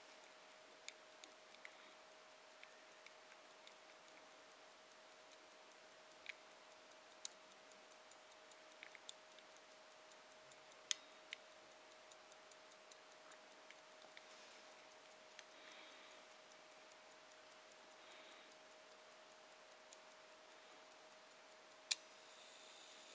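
Faint ticking of a gold pocket watch's movement (a circa-1900 minute-repeater Grande Sonnerie), with a few sharper clicks now and then and a faint steady tone underneath.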